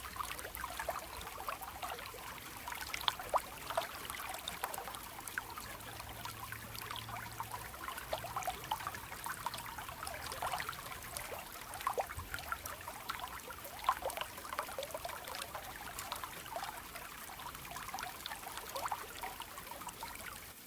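Small stream flowing gently over stones, a steady trickling and gurgling with frequent little splashes.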